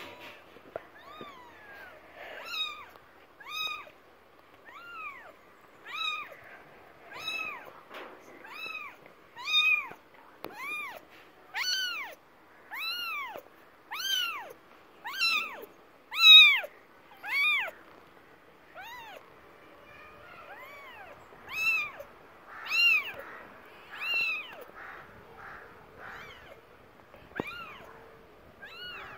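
Young kittens meowing over and over, roughly one high call a second, each call rising and then falling in pitch. There is a short lull about two-thirds of the way through.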